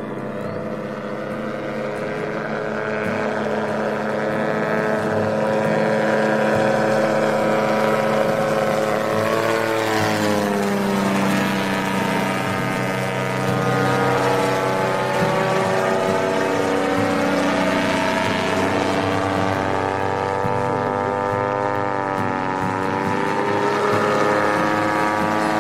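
Propeller engine of a homebuilt ultralight plane running as it flies overhead. Its drone sweeps down in pitch about ten seconds in as it passes, then rises again toward the end.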